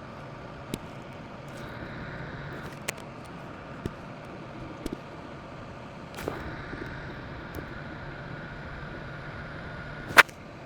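Scattered sharp clicks, with one louder click near the end, over a steady machine hum.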